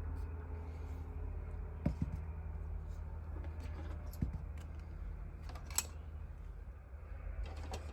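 Plastic model kit parts being handled: a few light clicks and taps, about two seconds in, at four seconds and near six, with brief rustling, over a steady low hum.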